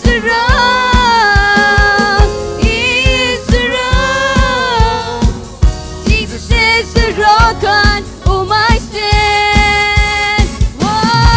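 Live worship band music: a song with a steady drum beat, about two to three beats a second, and a melodic lead line over it.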